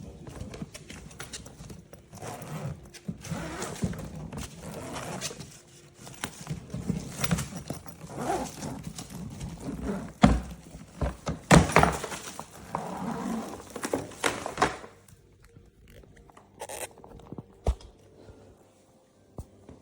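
Packed suitcase being handled: irregular rustling and shuffling with several sharp thumps around the middle, the handling stopping about three-quarters of the way through.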